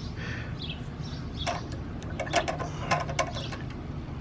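A handful of light metal clicks and taps from about a second and a half in, as an Allen key works a set screw on a pressure washer pump's brass unloader valve. Behind them is a steady low rumble.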